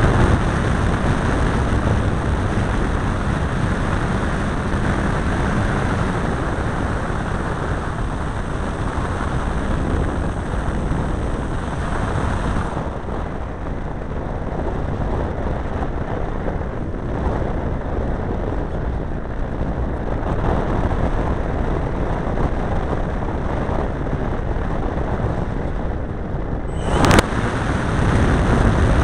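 Onboard sound of a large RC model airplane flying touch-and-goes: its engine running under heavy wind rush on the microphone. The sound changes about halfway through, and there is one brief, sharp loud crack near the end.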